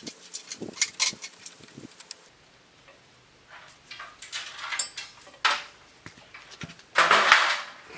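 Metal tools and parts clinking and knocking as a cast-iron drill press is dismantled, with a louder rough scraping rattle lasting about half a second near the end.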